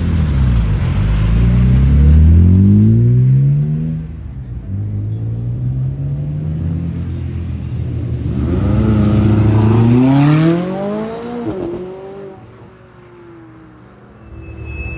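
McLaren's twin-turbo V8 revving hard with a rising note, then running lower before accelerating again about eight seconds in. A sudden drop in revs marks a gear change, and the sound fades as the car pulls away.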